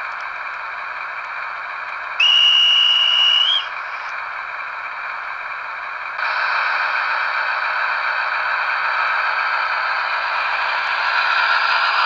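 Sound decoder of a Märklin BR218 model diesel locomotive playing its diesel engine sound through a small onboard loudspeaker, thin and without bass. About two seconds in a single high whistle sounds for about a second and a half, rising slightly at its end as the departure signal; about six seconds in the engine sound steps up louder as the locomotive pulls away.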